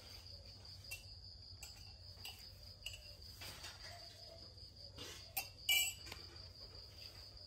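A steady high-pitched insect trill runs throughout over a low hum. Scattered light clicks and knocks sound through it, the loudest two close together about five and a half seconds in.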